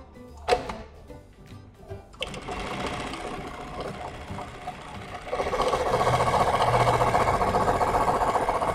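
Jack JK-T1906 computerized pattern sewing machine stitching a programmed pattern through denim: a sharp click about half a second in, then the machine starts about two seconds in with a fast, even run of stitches that grows louder about five seconds in.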